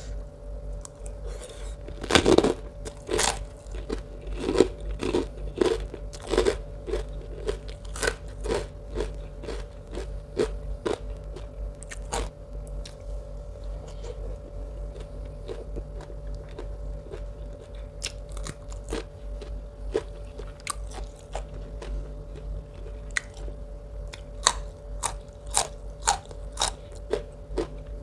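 A person biting and chewing crunchy food close to the microphone. There is a loud crunch about two seconds in, then a run of crisp crunches with wet chewing that thins out midway and picks up again near the end.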